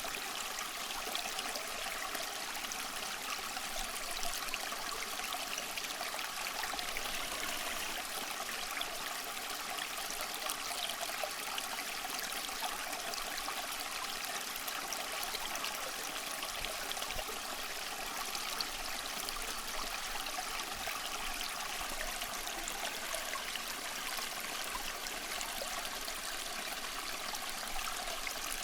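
A small stream running and trickling steadily over stones.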